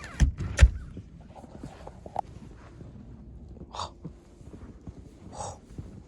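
Two dull thumps right at the start, then two short, harsh animal calls a second and a half apart, over a low background rumble.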